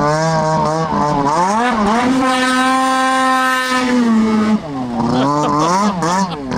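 Snowmobile engine blipping the throttle, then rising sharply to a steady high-rpm run held wide open while the sled skims across the water. About four and a half seconds in the revs drop and go up and down unevenly as the sled comes back onto land.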